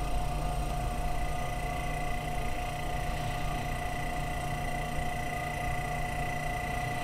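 Frigidaire Meter-Miser rotary compressor of a 1942 Coldwall refrigerator running steadily: a low, even hum with a thin steady whine over it.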